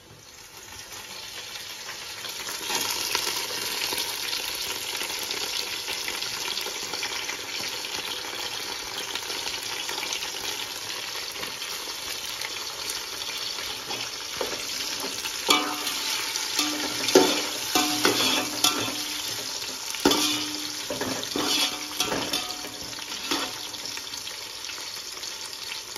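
Sliced onions and green chillies sizzling in hot oil in an aluminium pot, stirred with a slotted metal spoon. The sizzle swells over the first couple of seconds and then holds steady; from about halfway the spoon knocks and scrapes against the pot more and more often.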